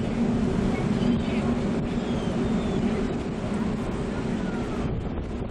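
Steady low drone of ship engines, with wind and water noise over it.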